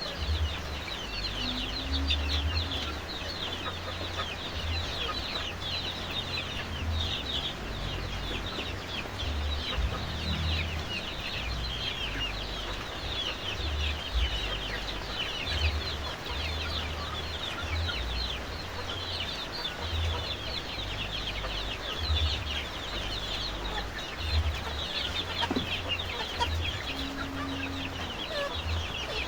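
A flock of Indonesian village chickens (ayam kampung) clucking and calling continuously, a dense stream of short, high, overlapping calls, over a low uneven rumble.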